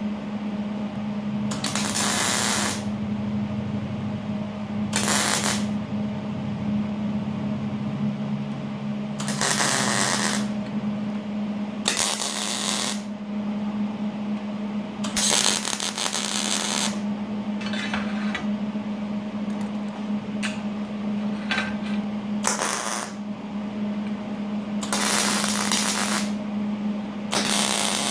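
Wire-feed welder laying short tack welds on the steel caster mounting plates: about a dozen separate bursts of arc noise, each up to about a second and a half long, with pauses between. A steady low hum runs underneath.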